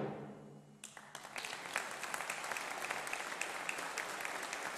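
A brass band's final chord rings away in the hall. After a brief hush, the audience starts applauding a little under a second in, and the clapping quickly builds to steady applause.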